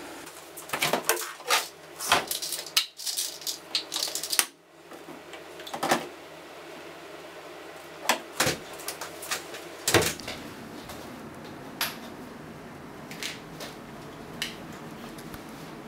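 Irregular clicks, knocks and rustles of people moving about and handling household objects. They come thick over the first six seconds, with a few sharp knocks around the middle and only occasional ticks after that.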